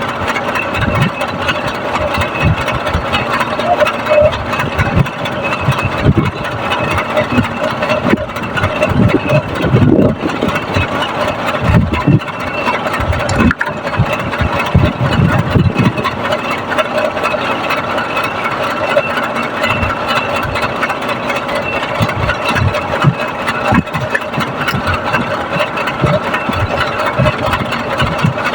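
A motor or engine running steadily, with irregular low knocks and bumps over it.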